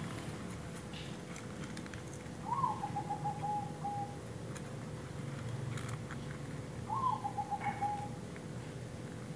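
A bird calling twice, about four and a half seconds apart: each call is a short higher note followed by a pulsing, slightly falling note lasting about a second and a half.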